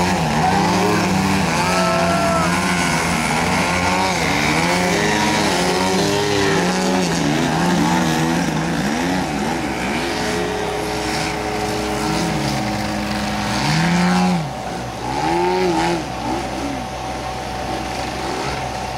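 Engines and propellers of several giant-scale RC aerobatic planes, their pitch repeatedly rising and falling as they throttle up and down through 3D manoeuvres, more than one engine sounding at once. The sound is a little quieter from about fourteen seconds in.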